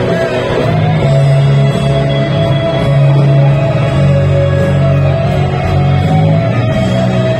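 Live rock band over a stadium sound system: an electric guitar lead holds long notes that bend slightly, over steady low bass notes.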